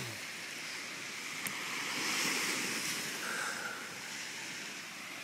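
Surf washing onto a beach, a steady rush of breaking waves that swells about two seconds in and eases off again.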